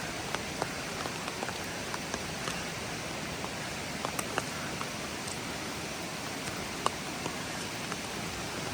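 Steady rush of water from storm runoff, with scattered light ticks.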